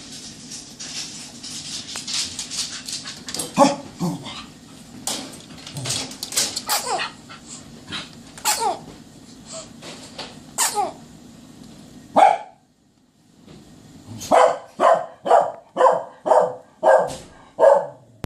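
A dog barking. Scattered short yips and clicks come first, then a steady run of short barks about two a second in the last few seconds.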